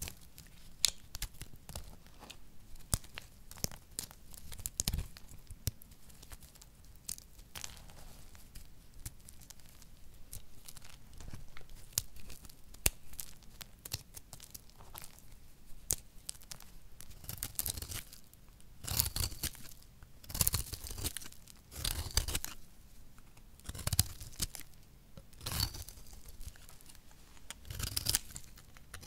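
Dry recycled soap made of pressed flakes being cut with a snap-off utility knife blade and crumbled by hand: dense crisp crackling and crunching. The crunching comes in louder clusters in the second half.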